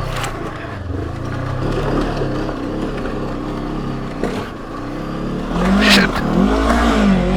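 Honda CB500X's parallel-twin engine pulling the bike up a loose rocky hill climb, with a few sharp knocks along the way. In the last couple of seconds the revs rise and fall several times as the throttle is worked.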